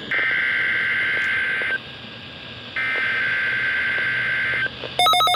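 NOAA Weather Radio test signal: two shrill bursts of the SAME/EAS digital header data, each just under two seconds long with about a second's gap between them. About five seconds in, a louder, rapidly warbling alarm tone starts.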